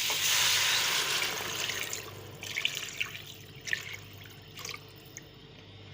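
Water poured into a hot pan of frying beef, onion and spices: a loud hiss that dies away after about two seconds, leaving scattered pops and crackles.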